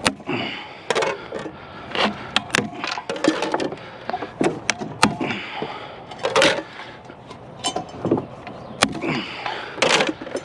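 Irregular clicks, knocks and clatter of metal and plastic fan parts being pried apart and handled during hand dismantling for scrap.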